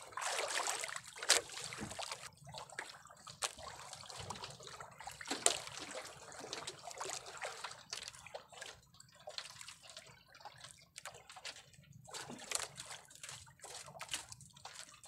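Sea water lapping and sloshing against the side of a small boat, with irregular small splashes and clicks.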